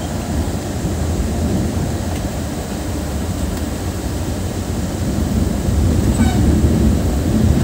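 Volvo coach travelling on the road, with a steady low engine drone and road noise. A brief horn sounds faintly about six seconds in.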